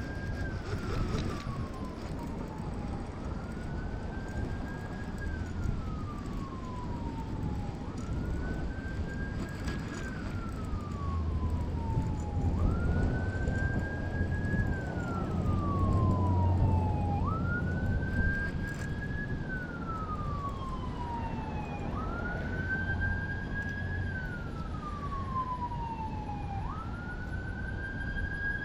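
A siren wailing in a slow repeating cycle: the pitch climbs, holds at the top, then slides down, about every four and a half seconds. A low rumble swells underneath in the middle.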